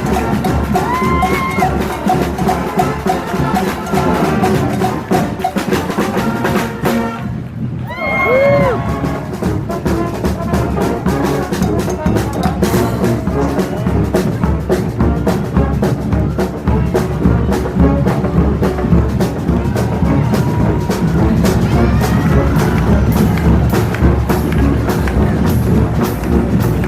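Street brass band playing live: horns over a busy, steady beat of marching drums, with a brief drop in the sound about seven seconds in.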